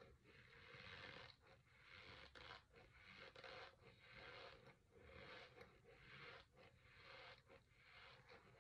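Dry Argo corn starch being chewed: a run of squeaky, crunchy chews, about one a second.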